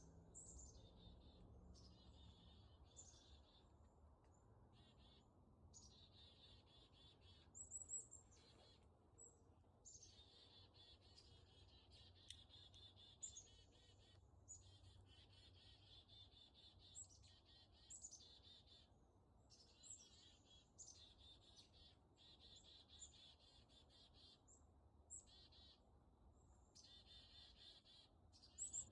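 Songbird singing high, rapid, twittering phrases of about one to two seconds each, one after another with brief pauses, over a faint low background hum.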